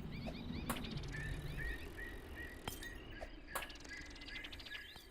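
Small birds chirping in short, repeated calls, with a few sharp clicks and a low background rumble.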